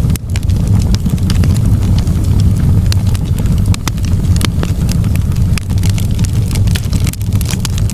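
Wood fire in a fireplace crackling and popping, with many irregular sharp snaps over a steady low rumble.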